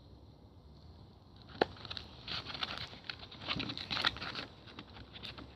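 Slime being squeezed and worked by hand, giving irregular crackling and crinkling for about two seconds, after a single sharp click about one and a half seconds in.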